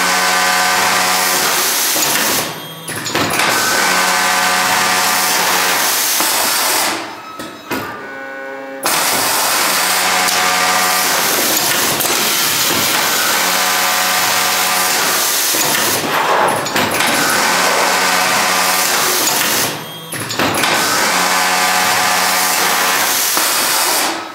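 SCHIPS HS 1216 automatic serging unit with its Juki industrial overlock head sewing at high, steady speed in long runs. It stops briefly four times, once for nearly two seconds about a third of the way in, as one side of the cloth is finished and the next begins, then stops near the end.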